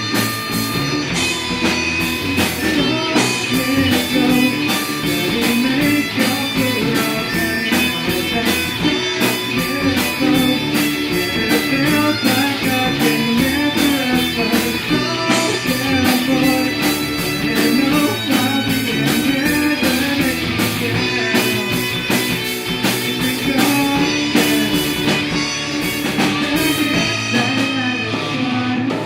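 A rock band playing a song, guitars over a drum kit with a steady beat.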